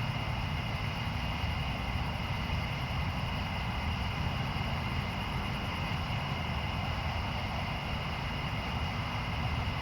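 Steady outdoor background rumble, low and even, with two constant high-pitched tones running above it and no separate thunderclap or crack.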